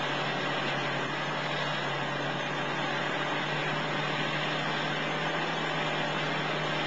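Steady engine drone: a wide rushing noise over a low, even hum.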